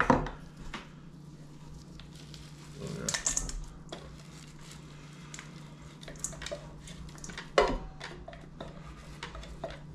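Kitchen utensil and dish noises as cooked vegetables are tipped and scraped into a mixing bowl. A clatter comes at the start, a scraping burst about three seconds in and a sharp knock a little past seven seconds, with light ticks between, over a steady low hum.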